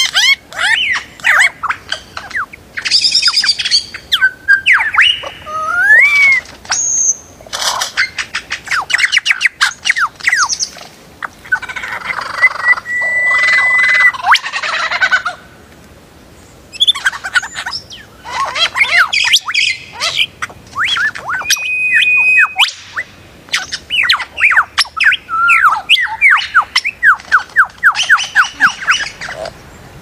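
Male superb lyrebird's display song: a loud, ever-changing run of mimicked calls of sharp clicks, whistles and quick falling notes. There is a held steady whistle near the middle, a brief pause just after it, and fast series of falling notes towards the end.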